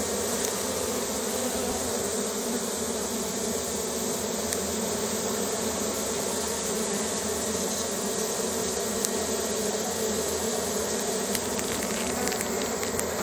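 A swarm of honeybees buzzing steadily: the dense, continuous drone of many bees at once.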